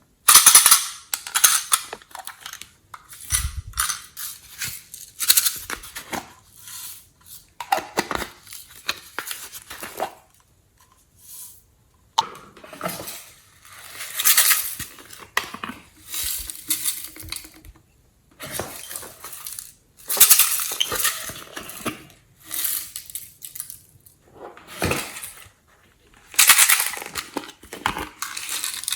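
Glossy slime being worked and squished, making sticky crackling and popping sounds in irregular bursts every second or two.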